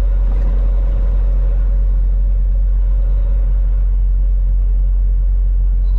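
Steady low rumble of a Peterbilt semi-truck's engine and tyres on the road, heard inside the cab while driving, with a faint whine that fades out about halfway through.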